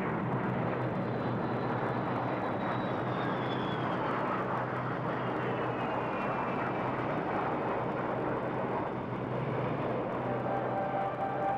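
Convair B-36 bomber's six piston engines and four jets at takeoff power: a steady, dense drone with a deep hum and a thin whine that falls in pitch as the aircraft passes and draws away. Sustained musical tones fade in near the end.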